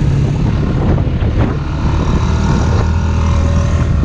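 Off-road vehicle's engine running steadily while under way, easing off briefly about a second and a half in.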